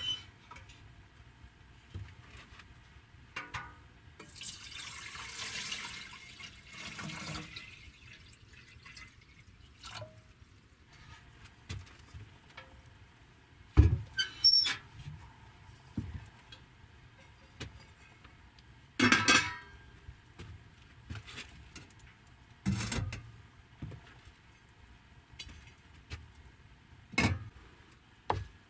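Water poured into a pot for about three seconds, then scattered knocks and clinks of pots, dishes and utensils being handled, the loudest about 14 and 19 seconds in.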